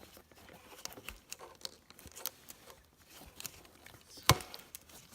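Hands fitting a motorcycle relay onto its metal mounting tab: scattered small clicks and rubbing, with one sharp click about four seconds in.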